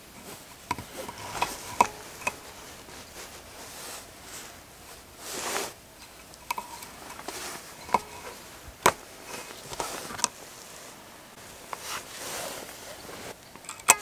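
Close handling sounds: a scattered string of sharp light clicks and taps with soft rustling, as hands fit a bent wire hook on a cord to a log door post, and a brief swish about five seconds in.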